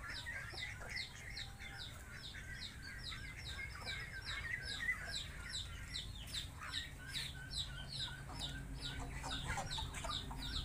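Chickens clucking quietly, with a steady run of short, high, falling chirps about three or four a second and a faint low rumble underneath.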